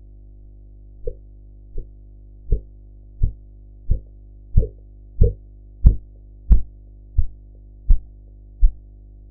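Korotkoff sounds of the pulse heard as a blood pressure cuff deflates: regular thumps about one every 0.7 seconds, starting faint about a second in and growing louder toward the middle. The first faint tap marks the systolic pressure. A steady low hum lies underneath.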